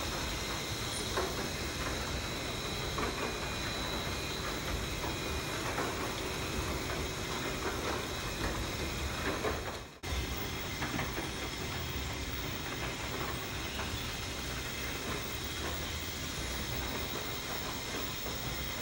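Sugarcane crushing mill and its chain cane conveyor running: a steady mechanical din with some clatter, cutting out for an instant about ten seconds in.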